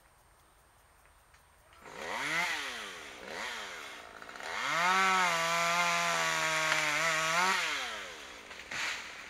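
Chainsaw, a small two-stroke engine, revved up and let back twice, then held at high revs for about three seconds before dropping back toward idle.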